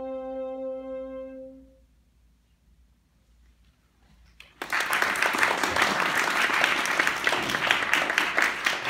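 A final held note from violin and bassoon fades out about two seconds in. After a short silence an audience starts applauding suddenly, about four and a half seconds in.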